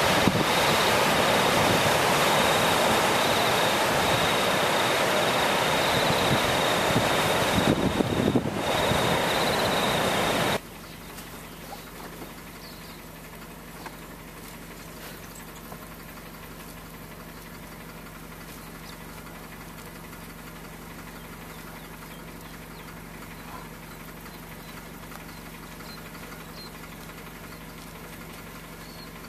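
Ocean surf washing onto a sandy beach, with wind buffeting the microphone and a faint steady high whine. About ten seconds in it cuts abruptly to a much quieter steady low hum of an idling engine, with a few faint ticks.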